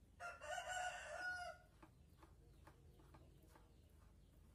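A chicken calling once, a single pitched call about a second and a half long, followed by a few faint ticks.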